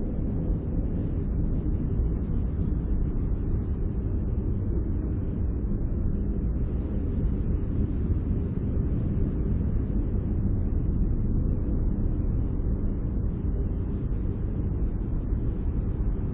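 Steady, deep rumble of ocean surf, with no single wave break standing out.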